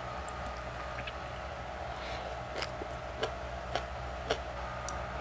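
Someone eating: four short, sharp clicks about half a second apart in the second half, over a steady low hum.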